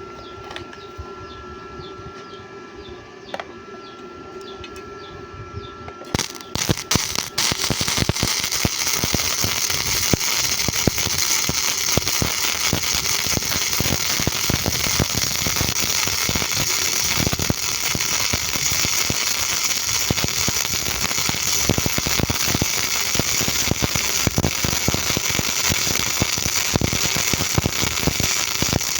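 Gasless flux-cored MIG welding arc crackling and sputtering steadily. It catches with a few stuttering cracks about six seconds in, after a steady hum, then runs on continuously.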